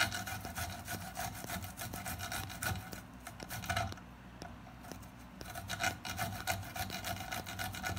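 A fresh garlic clove being grated on a flat metal hand grater: rapid, irregular rasping strokes that grow softer for a second or two around the middle.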